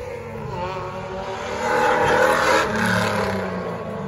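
Racing touring car's engine at full throttle as the car approaches, rising in pitch and growing louder to a peak about halfway through, then easing off.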